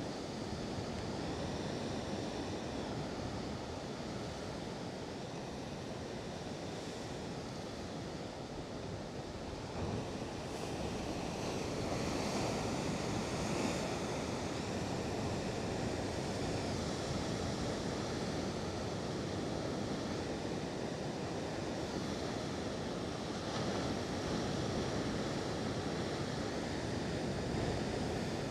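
Heavy ocean surf breaking and churning, a steady wash of noise that swells a little louder about a third of the way through, with wind buffeting the microphone.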